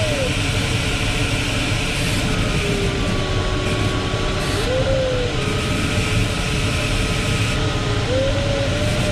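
Steady rush of airflow in the cockpit of a Ventus 2cxT sailplane in flight, with the variometer's electronic tone sliding in pitch over it. The tone is low and level for a couple of seconds, rises briefly about halfway, then rises again near the end.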